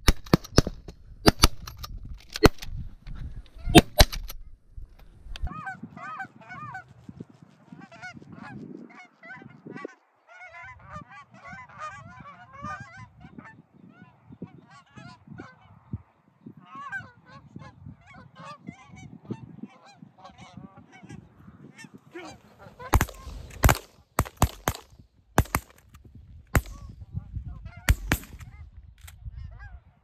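A quick run of shotgun blasts, then a flock of geese honking continuously for about fifteen seconds, then another run of shotgun blasts near the end.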